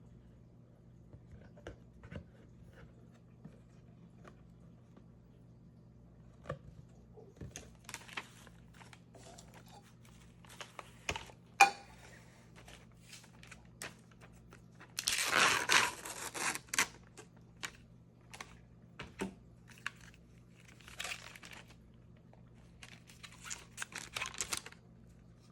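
Packaging of a box of mochi ice cream being opened and handled: scattered clicks and crinkles, a sharp snap a little before halfway, and a loud tearing of wrapping for about two seconds just past halfway, with shorter crinkly rustles near the end. A faint steady low hum runs underneath.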